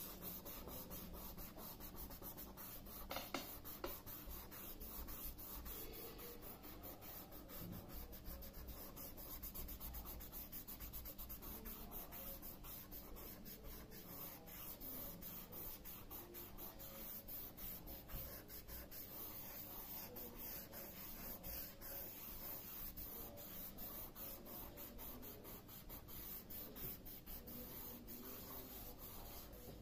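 A folded scrap of paper rubbed back and forth over graphite pencil shading on drawing paper to blend it: a faint, continuous scratchy rubbing of many quick short strokes.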